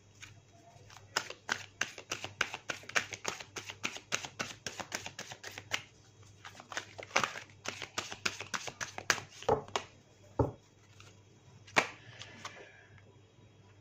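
A deck of cards being shuffled by hand: fast runs of soft card flicks, with a short pause about six seconds in. After that come a few scattered knocks and a single sharper snap from handling the cards.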